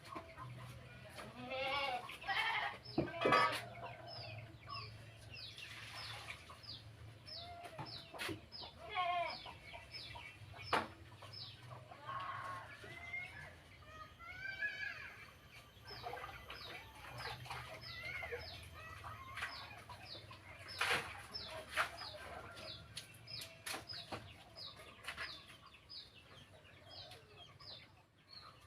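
Chickens clucking, with short high chirps repeating about two to three times a second and a few sharp knocks.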